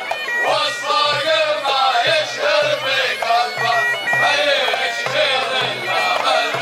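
Arab folk dance music with a wind instrument carrying a wavering melody, playing continuously.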